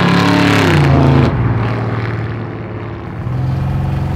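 A 1967 Chevy C10 pickup's engine and exhaust as the truck drives past, the note falling in pitch and then dropping off suddenly about a second in. A steadier engine note comes back near the end.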